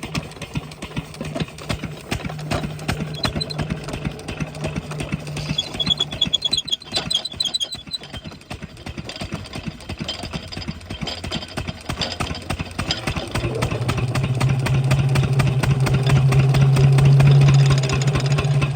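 A 12 hp single-cylinder diesel water pump engine running with a regular firing beat. About 13 seconds in the note steadies and grows louder, strongest near the end; brief high chirping is heard around 6 to 8 seconds in.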